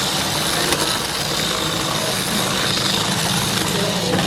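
Small battery-powered electric motors of Break Go Ga toy battle cars whirring steadily, a constant high whine over a low hum.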